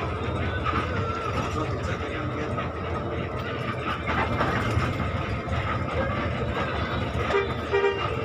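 Bus engine and road noise heard from inside the cabin at the front, a steady rumble. Near the end a horn sounds briefly.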